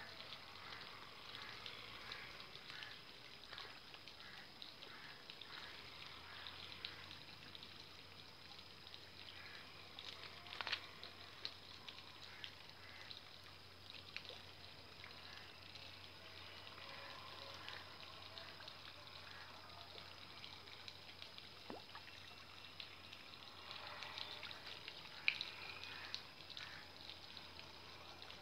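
Faint water trickling and dripping as a wet fishing hand line is pulled in hand over hand from the river, with a few soft clicks.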